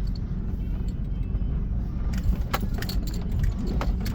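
Inside a Toyota Land Cruiser Prado crawling over a rough off-road track: a steady low rumble with sharp knocks and rattles from the bumps, several of them in the second half.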